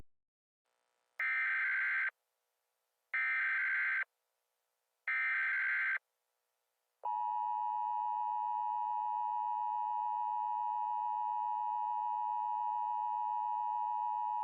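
Emergency Alert System header: three short bursts of data tone about a second apart. About seven seconds in, the steady two-tone EAS attention signal begins.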